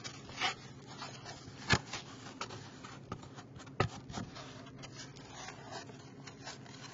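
A plastic scoop scraping and pressing homemade kinetic sand (sand, cornstarch and oil) around the corners of a plastic tub, with gritty rustling and two sharp plastic knocks about two seconds apart.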